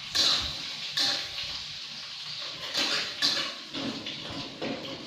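Metal spatula scraping and knocking against a wok, four louder strokes, over the steady sizzle of an egg frying in hot oil.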